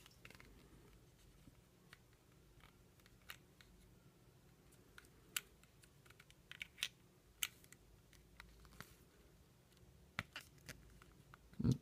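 Faint, scattered clicks and scrapes of small plastic parts being handled: a charging cable's adapter tip is worked into its storage slot on a plastic power bank. A louder bump comes near the end.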